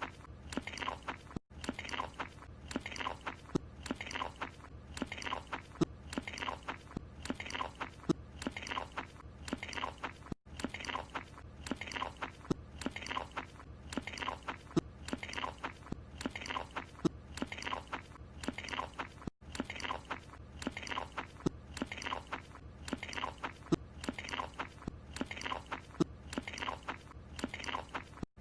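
Cartoon eating sound of a croissant being chewed with wet, crunchy smacking, about two chomps a second. The same short clip repeats, breaking off with a brief gap about every nine seconds where the loop restarts.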